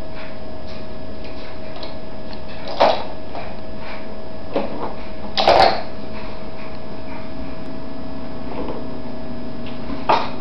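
A few short plastic clacks and knocks from a baby's car-shaped plastic walker as its toys are handled and it moves on the tile floor, the loudest about five and a half seconds in, over a steady hum.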